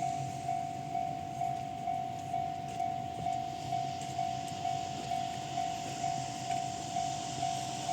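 Japanese level-crossing electronic warning bell, the Tohoku-type alarm sound, ringing steadily as one high tone struck about twice a second. A low hum and a faint hiss run under it.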